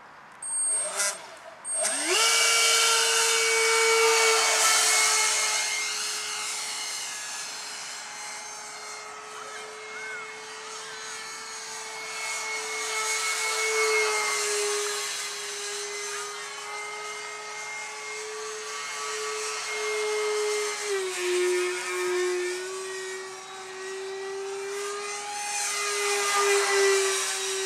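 A 70mm electric ducted fan with a brushless motor on an RC F-16 jet. It gives two short blips, then spools up sharply to a high, steady whine and holds it in flight, swelling and fading in loudness as the plane passes.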